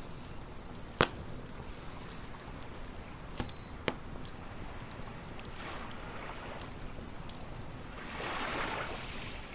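Wood fire crackling with a few sharp pops, the loudest about a second in, over a steady wash of ocean waves on a beach, with a wave swelling in near the end.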